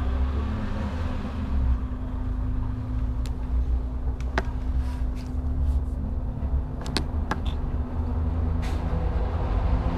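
City bus engine running with a steady low rumble and hum, heard from inside the passenger cabin, with a few scattered sharp clicks and rattles.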